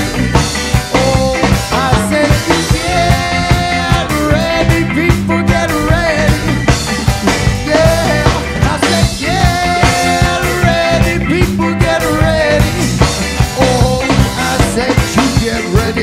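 Background band music with a steady drum beat, bass, and a bending lead melody.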